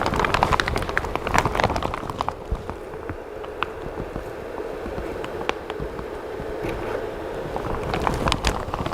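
A freshly printed resin part being rinsed in alcohol: liquid sloshing with many small clicks and taps of the print and container, busiest in the first couple of seconds and again near the end.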